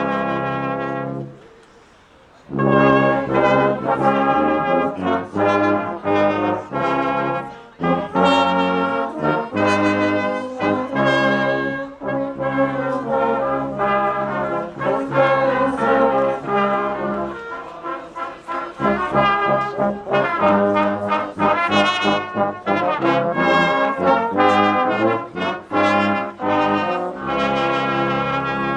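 Brass band playing a Christmas carol in sustained chords, with a short break about a second in before the playing resumes.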